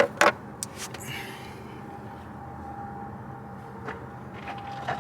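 Two sharp metallic clicks a quarter second apart as removed parts and tools are handled, then a steady low background hum.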